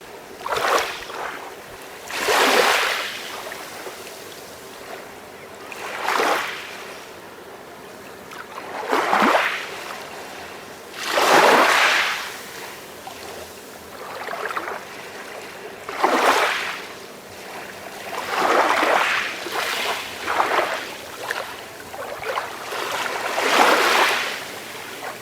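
Small waves washing onto a shore, each a rush of surf that swells and falls away, coming every two to four seconds over a steady background wash.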